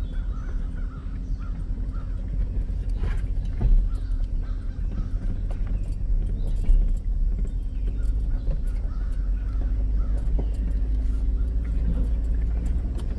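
Ford Ranger pickup driving slowly up a rough dirt trail, heard from inside the cab: a steady low rumble of engine and tyres, with scattered faint knocks and a few faint squeaks near the start.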